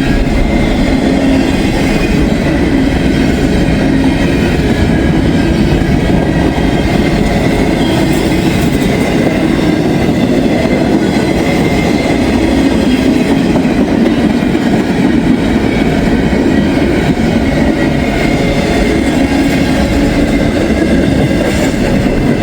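CSX intermodal freight train rolling steadily past, its container cars, some running empty, clattering over the rails in a continuous rumble.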